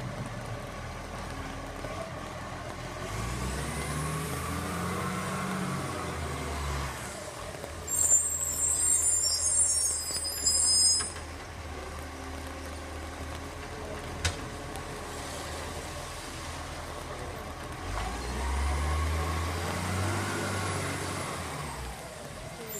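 Garbage truck's diesel engine pulling away and slowing twice, its pitch rising and falling each time. About eight seconds in there is a loud hiss of air lasting about three seconds, typical of the truck's air brakes.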